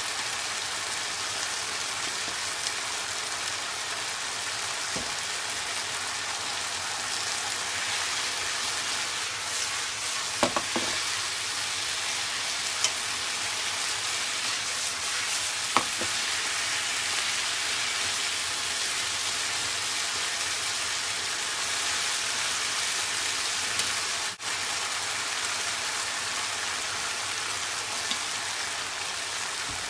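Food sizzling steadily as it is stir-fried in a hot pan, with a few short ringing clinks of a utensil against the pan around the middle.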